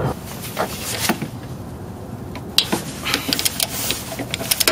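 Irregular sharp metallic clicks and knocks of a socket wrench on an extension working a bolt loose, with a quick run of clicks near the end.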